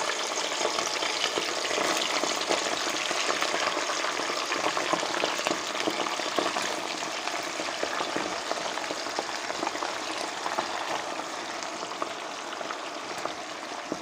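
Hot rendered suet bubbling and frying raw meat chunks in a stainless pressure-cooker pot: a steady, dense sizzle full of tiny crackles as the meat is tipped into the fat, easing slightly toward the end.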